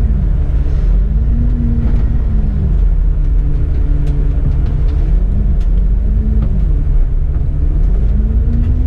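A city bus's engine and drivetrain running from the driver's cab as the bus drives on, with a steady low rumble and a whine that rises and falls in pitch several times as the bus speeds up.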